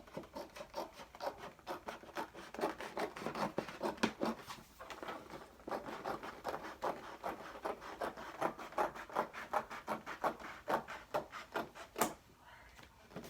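Scissors cutting through poster board: a steady run of crisp snips, about three to four a second, with a short pause about five seconds in. The cutting stops shortly before the end.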